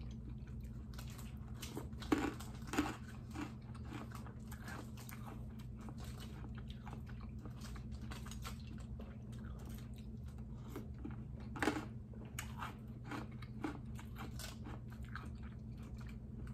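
Close-up chewing and crunching of milk-soaked Whoppers malted milk balls eaten by the spoonful, with scattered crunches, the loudest about two seconds in and again near twelve seconds, over a steady low hum.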